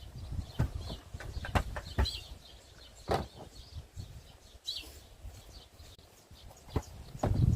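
Birds chirping now and then, with scattered irregular knocks and scrapes.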